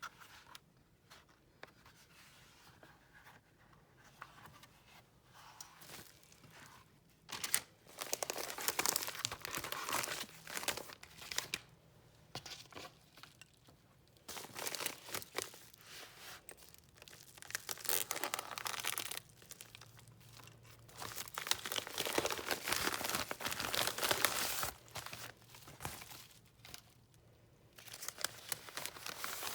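Packaging being unwrapped by hand: crinkling, rustling and tearing in several bursts, with quieter handling noises between.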